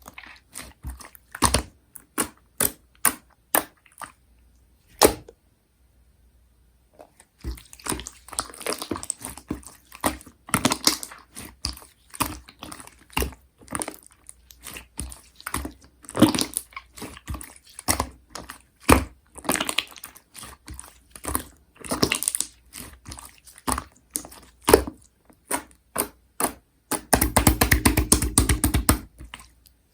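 Hands squishing and poking slime: a run of sharp clicks and pops, a short pause, then wet squishing with crackles and clicks, ending in a fast run of crackles near the end.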